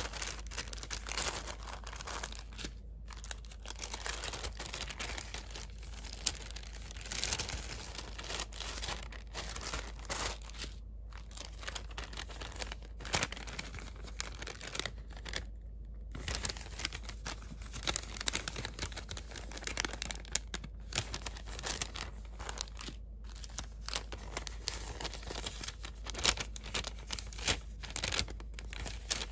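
Paper bags and paper inserts rustling and crinkling as hands open, fold and flip through them, with small crackles and taps and a few brief pauses.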